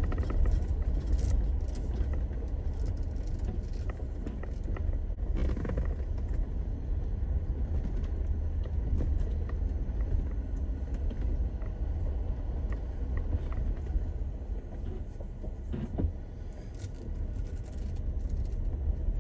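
Jeep Rubicon rolling slowly along a rough gravel track, heard from inside the cab as a steady low rumble of engine and tyres, with a few brief knocks from the bumpy road.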